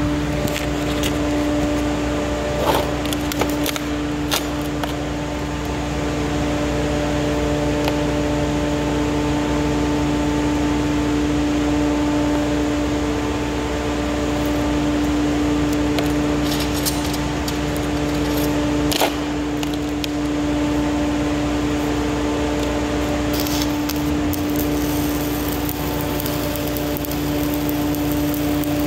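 Steady machine hum at one fixed pitch, with a few clicks and knocks. Near the end a stick-welding arc starts crackling on stainless steel, burning a Lincoln 308 1/8-inch electrode vertical-up at 127 amps.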